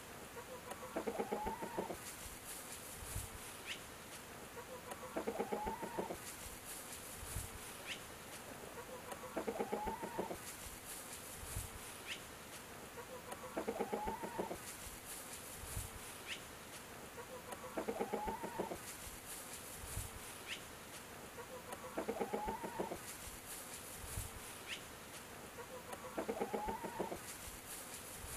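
Domestic chickens clucking: a drawn-out, pitched hen-style call of about a second, repeated at very even intervals about every four seconds, with a faint high hiss that comes and goes in between.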